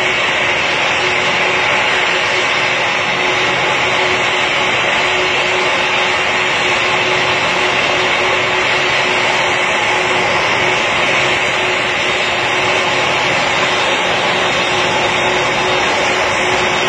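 Boeing 747 jet engines running at taxi power as the airliner rolls slowly in: a steady, loud whine and rush with a constant humming tone underneath.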